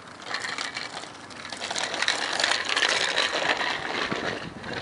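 Bicycles riding past on a rough road: a hissing rush of tyre noise with many small clicks and rattles, swelling in the middle and easing near the end.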